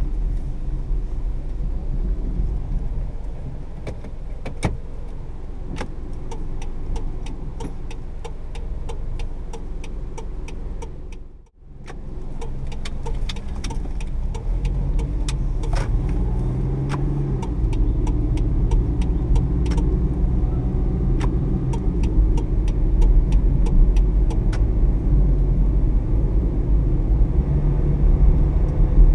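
Cabin sound of a 2012 Kia Picanto's 1.0-litre three-cylinder engine and automatic gearbox on the move: a steady low engine and road rumble, with many light clicking ticks through much of it. The sound drops out briefly about eleven seconds in and is a little louder afterwards.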